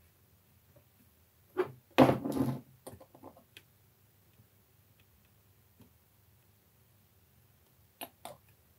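Scattered clicks and light knocks of hands handling plastic model parts and the screw cap of a glue bottle: the loudest cluster about two seconds in, a few small ticks after it, and two quick clicks near the end.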